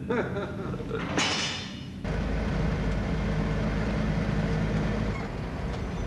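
Steady low rumble inside a vehicle's cabin, starting suddenly about two seconds in. It follows a brief rush of noise at about one second.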